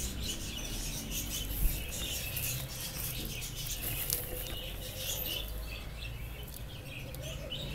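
Hands rummaging in a plastic bag of coconut coir potting soil: a steady run of small crackles and rustles from the plastic and the crumbling soil.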